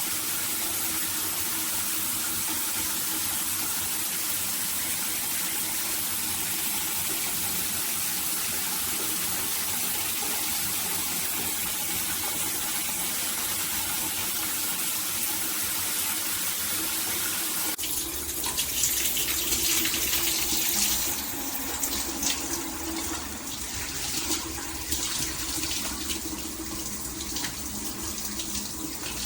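Shower water running from a HammerHead all-metal shower head in a steady hiss of spray. About 18 seconds in the sound changes abruptly to a louder, more uneven splashing with a low rumble.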